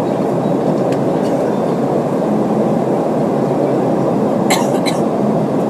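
Steady roar of the Boeing 717's rear-mounted Rolls-Royce BR715 turbofans heard from inside the cabin, with a brief clatter of something rattling about three-quarters of the way through.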